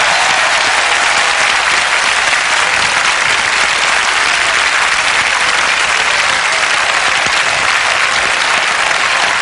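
A very large crowd applauding, a dense steady clapping that holds without letting up.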